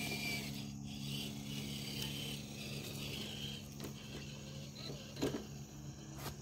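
Traxxas TRX-4 RC crawler's motor and gear drivetrain whirring steadily as it crawls over rocks, with a few clicks and knocks of tyres and chassis on the stones, the loudest about five seconds in. Crickets chirp faintly.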